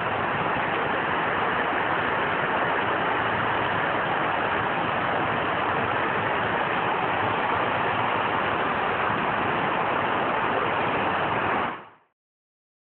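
Heavy rain falling in a steady, even hiss that cuts off suddenly near the end.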